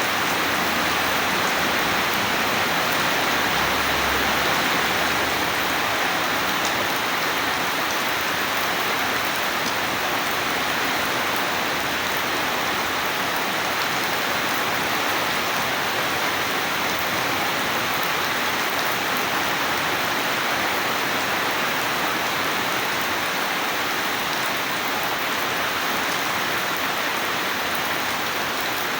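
Steady rain falling: a dense, even hiss of drops that holds at the same level throughout.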